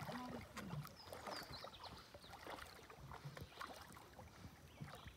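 Faint, irregular splashing and lapping of shallow river water.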